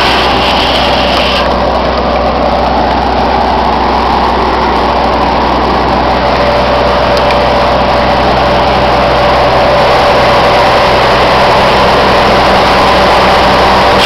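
Sawmill machinery running steadily and loud: the mill's engine and drive run at a constant pace with no breaks.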